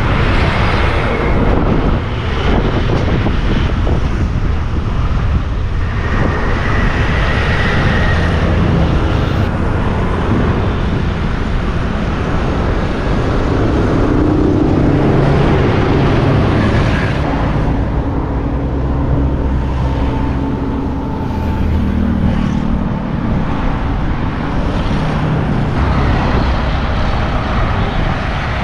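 Road traffic passing on a bridge: a steady rumble of vehicle engines and tyres, with single vehicles swelling and fading as they go by.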